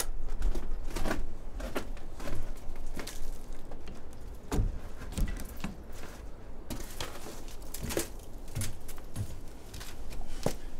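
Irregular knocks, clicks and rustling of someone handling things at close range, with scattered low thumps.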